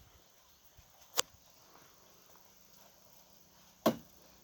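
Two sharp chops of a hand-held blade striking into tree branches, about a second in and again near the end.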